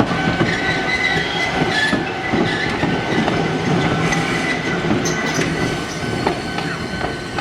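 Train running, a steady high whine over a low rumble with a few clicks; the whine stops near the end.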